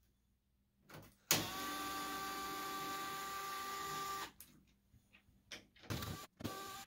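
Cordless drill/driver running steadily for about three seconds while backing screws out of a model airplane's fuselage, then a couple of short bursts near the end.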